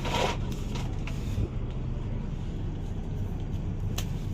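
Steady low hum of an engine running at idle, with a short rustle at the start and a few light clicks.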